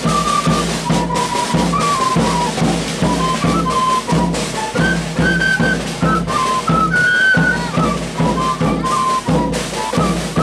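Wooden flutes playing a high melody that steps up and down, over drums beaten in a steady rhythm: a large container drum struck with a long stick and smaller snare-type drums.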